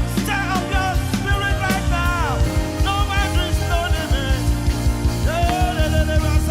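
Gospel worship song performed live by a group of singers with a band: held, bending sung notes over a steady drum beat and bass.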